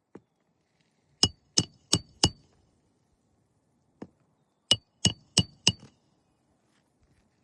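Hammer driving nails: four quick ringing metallic blows, about three a second, then after a pause four more. A fainter single tap comes before each set.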